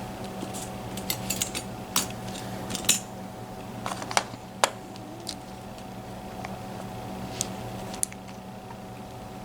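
Small metallic clicks and clinks of a Mul-T-Lock MT5+ lock cylinder and metal picking tools being handled, bunched in the first half and sparser later, over a steady low hum.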